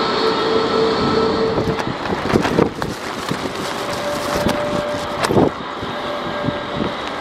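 Heavy rain and gusty wind hitting the microphone, over the steady hum of a taxiing twin-engine jet airliner. From about two seconds in, the gusts come as irregular thumps.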